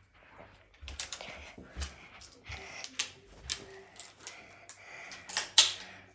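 A string of irregular sharp clicks and taps, about one or two a second, the loudest about five and a half seconds in.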